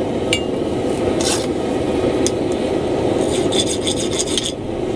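Propane forge burner running with a steady rushing noise, with a few light metallic clicks and a quick run of scraping strokes about three seconds in.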